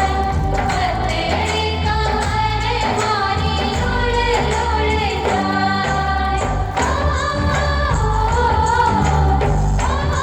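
Indian film-style song playing: a melodic vocal line over a steady, repeating bass beat.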